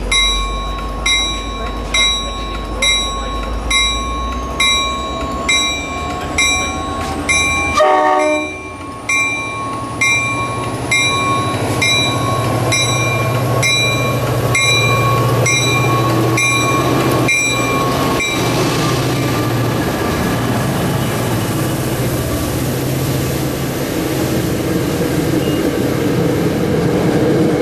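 Diesel commuter locomotive arriving at a station with its bell ringing steadily, about one stroke a second. About eight seconds in there is a short horn note. After that, the locomotive's engine drone and the rumble of the coaches rolling past take over.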